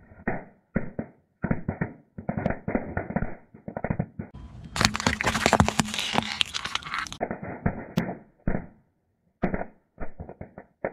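Car tyre rolling slowly over small brittle objects and crushing them: runs of sharp cracks and crunches, with a louder, denser crackling stretch in the middle and a few scattered cracks near the end.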